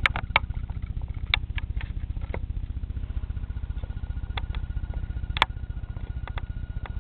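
Vehicle engine running steadily, heard from inside the cab, with scattered clicks and knocks from things being handled inside.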